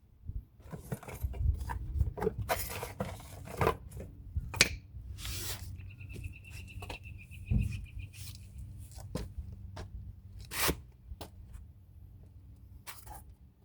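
Hands handling brake parts and packaging: an irregular run of scrapes, rustles and small knocks, with a brief high squeak about six seconds in.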